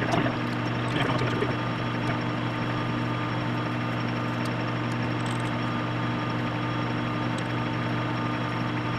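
Metal lathe running steadily while a twist drill bores into the centre of the spinning metal adapter, a constant machine hum with a hiss of cutting and a few small clicks near the start.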